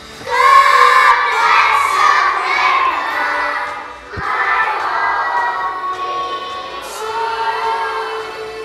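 A group of preschool children singing loudly together, with a short break about four seconds in before the singing resumes.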